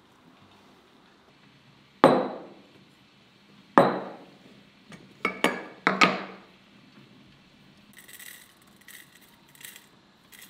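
A glass teapot, its metal lid and a bowl of tea set down on a wooden table: five sharp knocks with a short ring, two of them close together. Near the end, a soft crackling patter as dry loose-leaf tea is poured into the glass teapot.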